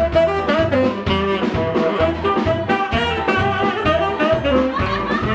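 Upbeat swing-jazz band music, with saxophone and brass playing the tune over a steady beat.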